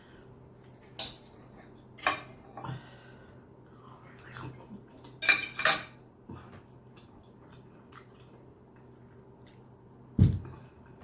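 Knife and fork clinking and scraping on a plate as steak is cut and eaten: several short, sharp clinks, the loudest about five seconds in, then a dull thump near the end.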